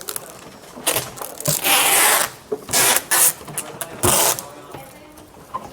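Adhesive packing tape pulled off the roll in four quick ripping strips, each lasting a fraction of a second.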